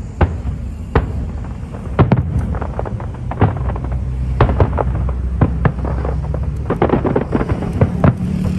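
Aerial fireworks shells bursting in quick, irregular succession, about two sharp bangs a second, over a steady low rumble.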